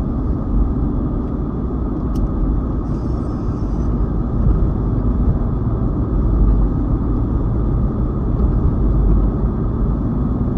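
Steady low rumble of a car being driven: engine and road noise heard from inside the cabin, with a faint click about two seconds in.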